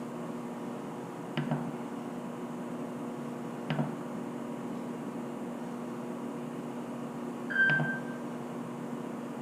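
Two clicks and then a short electronic beep, as buttons are pressed on a SubMonitor pump-protection unit, over a steady electrical hum.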